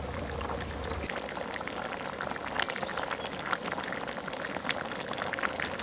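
Pot of sour-soup pork trotters simmering: soft, steady bubbling with scattered small pops.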